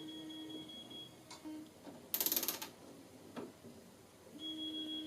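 Electric assembly torque tool running with a steady whine, which stops about a second in and starts again near the end, with a loud half-second mechanical rattle about two seconds in and a couple of lighter clicks.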